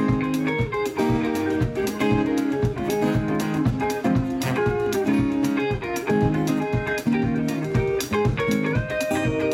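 Live band music: guitar playing over a steady drumbeat, an instrumental stretch with no singing.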